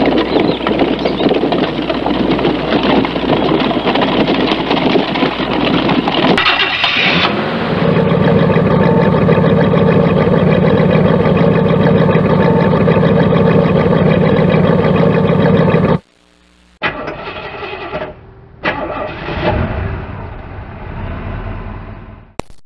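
Horse-drawn carriage going along, then a vintage car's engine being started about six seconds in and running steadily at idle. It cuts off abruptly about 16 seconds in, and a second car engine is started and run.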